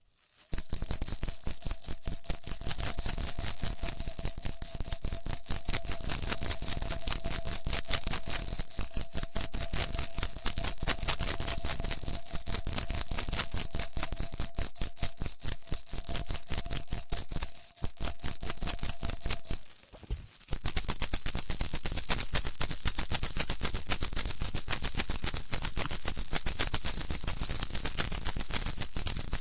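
Maracas shaken fast and continuously, a dense, high rattling shake of many quick strokes, with a short lull about twenty seconds in before the shaking picks up again.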